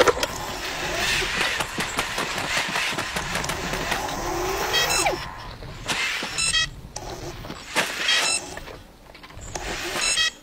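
Robot servo motors whirring and whining, with a few rising whines, scattered clicks and short high electronic chirps.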